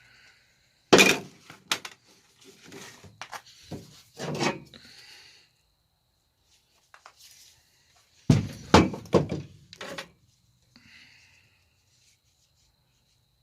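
A run of knocks, thuds and clatter of hard objects being handled and set down. The loudest thud comes about a second in, and a second cluster of knocks follows about eight seconds in.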